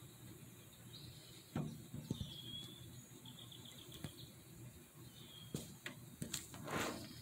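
Faint pond-side ambience: short high chirps and quick chirp trains over a low steady rumble, broken by a few sharp clicks and a short rustling burst near the end.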